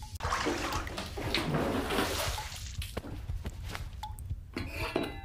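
Bathwater sloshing and splashing in a tub, strongest in the first couple of seconds, followed by a few lighter, shorter water sounds.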